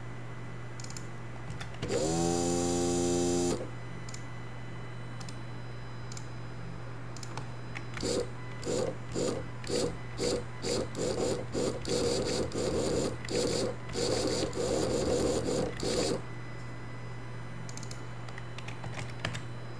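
Small DC motor under closed-loop position control whining as it spins up and runs at a steady pitch for about a second and a half, then stops abruptly. Later comes a quick series of short whirring bursts as the motor jerks back and forth between commanded positions, the bursts running together near the end. A steady low hum lies underneath.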